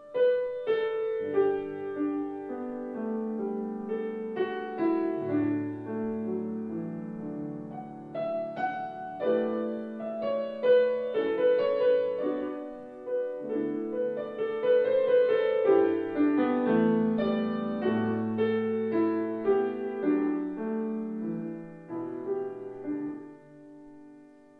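Background piano music: a gentle melody over chords, played as a stream of single notes that each ring and die away, fading out near the end.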